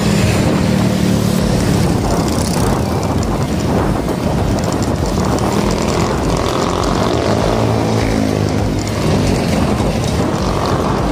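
Loud, steady noise of a bike in motion: a dense rush with a low hum underneath.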